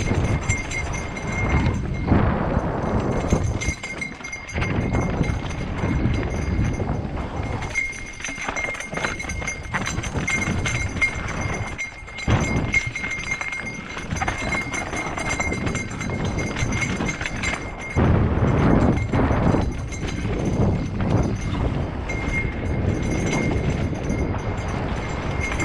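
Mountain bike riding fast down a rocky dirt singletrack: tyres rolling over loose rock and dirt and the bike rattling over the bumps, a continuous rough, uneven noise. A thin steady high tone runs underneath most of it.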